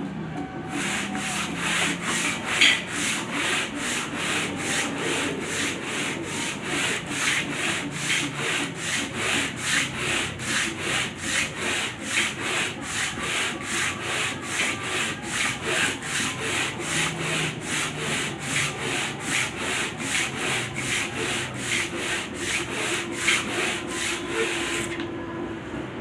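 Hand sanding in steady back-and-forth strokes, about two a second, as a wood planer's table is being flattened. The strokes start just under a second in and stop about a second before the end.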